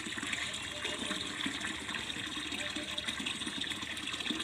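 Water jetting from a pump-fed pipe into a partly filled plastic water tank: a steady splashing gush as the tank fills.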